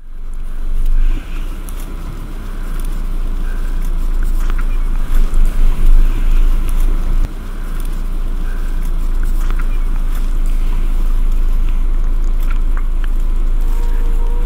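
Steady low vehicle rumble with wind noise on the microphone, gusting loudest around five to six seconds in.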